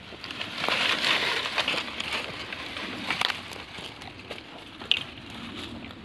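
Dry leaves and brush rustling and crackling while a long dry branch is handled, with a sharp snap about five seconds in.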